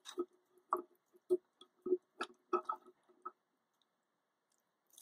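Light metallic clicks and taps from an Allen key working the set screw of a small diamond bit on a Gryphette glass grinder's arbor: about ten short clicks, some with a faint ring, over the first three seconds, then they stop.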